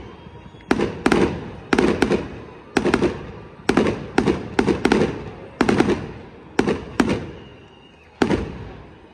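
Fireworks show: aerial shells bursting in quick succession, roughly one to two bangs a second with some close doubled cracks, each bang trailing off in a fading rumble. A short lull comes before a last bang near the end.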